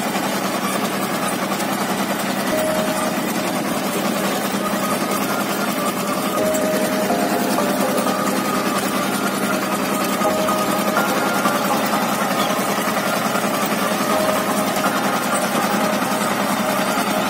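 The T-25 tractor's two-cylinder air-cooled diesel runs steadily under load as it pulls a cultivator through the field, a fast, even clatter.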